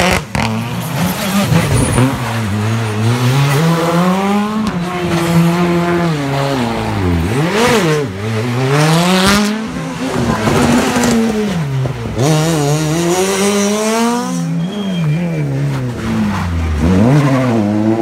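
Rally car engines revving hard and dropping back again and again as the cars brake, change gear and accelerate past at close range, one car after another.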